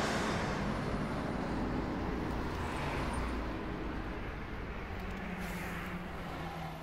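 Steady city traffic noise, a low rumbling hum of distant road traffic, slowly fading away.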